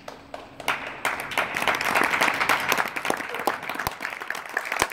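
Spectators applauding in a gym, a crowd of hand claps that swells about a second in and thins out near the end.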